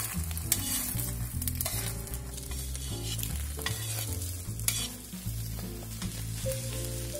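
Egg yolks sizzling in hot oil in a wok while a metal spatula repeatedly scrapes and pushes them around the pan, with soft background music underneath.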